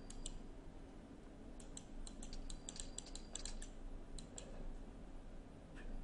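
Computer keys clicking: two light clicks at the start, then a quick irregular run of about a dozen and a half clicks from about one and a half to four and a half seconds in, over a faint steady low hum.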